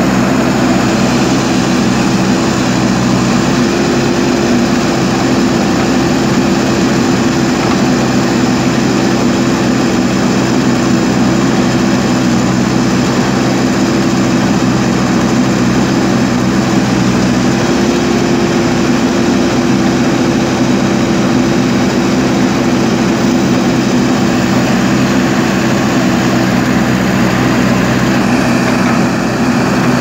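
JCB backhoe loader's diesel engine running steadily at a constant speed while the machine digs, a continuous low engine note with no break.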